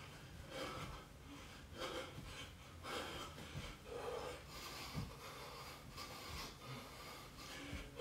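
A man breathing hard while exercising, with a forceful, noisy exhale roughly once a second. A few soft thuds come in between.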